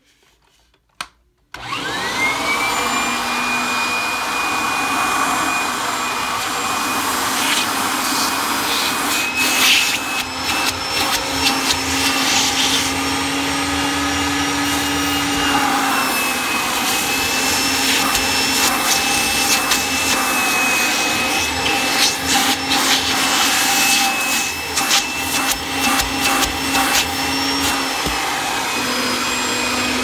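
1997 Kirby G5 upright vacuum cleaner, a metal-fan model with the hose attached, switched on about a second and a half in: its motor whine rises quickly as it spins up, then runs steadily with the pitch wavering slightly. Scattered clicks and knocks sound over the running motor.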